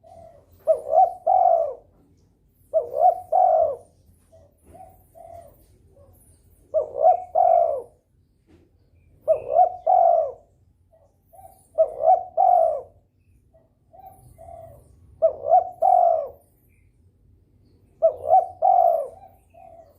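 Spotted dove (derkuku) cooing over and over: a loud two- or three-note coo phrase every two to three seconds, seven in all, with softer short coos in between. This is the persistent calling of a bird in breeding condition.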